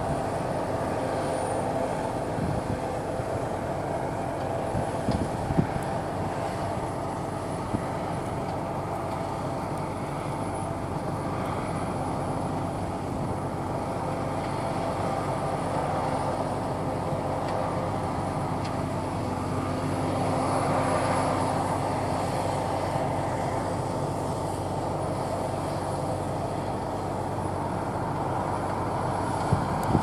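Claas Lexion 670 combine harvester running while harvesting barley: a steady mechanical drone of engine and threshing machinery with a thin high whine over it, swelling slightly about two-thirds of the way through.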